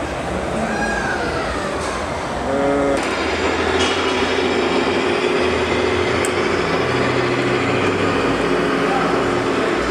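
Steady running noise of RC model vehicles over exhibition-hall background, with a few short gliding tones in the first seconds. About three seconds in it changes abruptly to louder, steadier running noise with a sustained hum.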